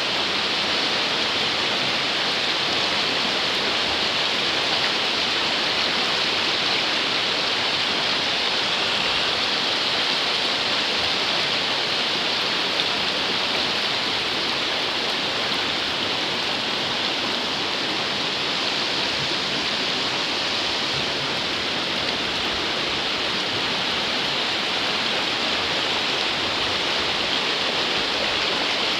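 River water rushing steadily, a dense, even hiss that never lets up.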